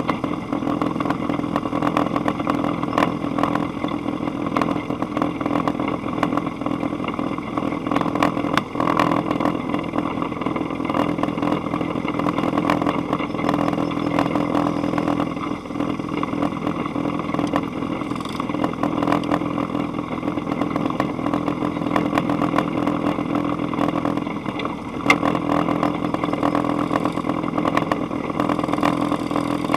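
Dune buggy engine idling steadily, with frequent light clicks and rattles.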